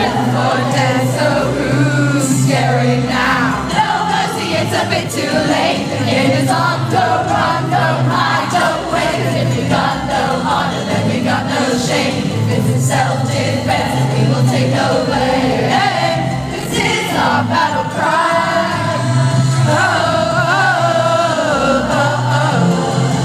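Live concert music with several singing voices over a loud band backing, heard from the audience.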